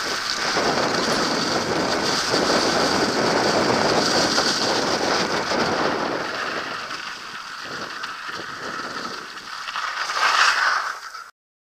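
Wind rush on a helmet-mounted action camera's microphone with mountain bike tyres rolling and rattling over a leaf-covered dirt trail and then pavement at speed. The noise eases partway through, surges again near the end, and cuts off suddenly.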